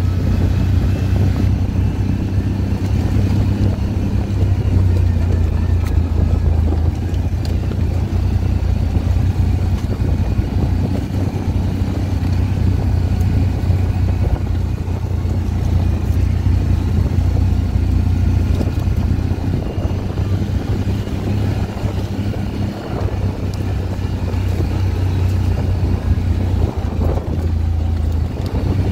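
CFMoto CForce ATV engine running at a steady cruising pace, a steady low drone heard from the rider's seat as the quad rolls along a dirt trail.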